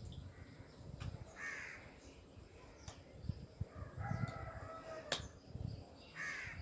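Birds calling faintly in the background: harsh caws about a second in and again near the end, and a longer pitched call around four seconds in. A few sharp clicks are heard as well.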